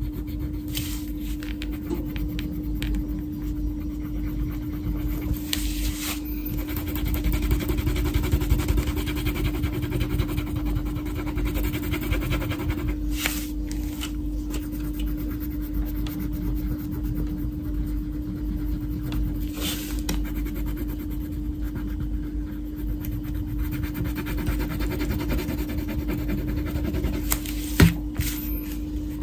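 Wax crayon rubbing back and forth on a paper colouring page, with scattered short scratchy strokes over a steady low hum. A single sharp knock comes near the end.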